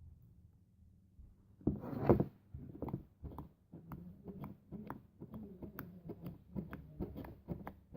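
Slime being squeezed and poked by hand, giving a run of short clicks and pops. The run starts after a quiet second and a half and is loudest about two seconds in.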